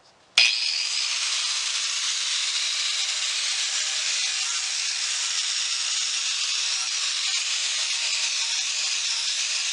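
Makita 4.5-inch angle grinder with a braided wire cup brush scouring paint and rust off 100-year-old cast iron, a steady high hiss of wire on metal. It starts abruptly about half a second in.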